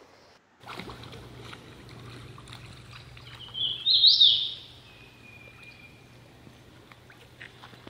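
Quiet creekside ambience with a faint steady low hum. About four seconds in, a bird gives one loud, short call of quickly rising notes, trailing off in a fainter held note.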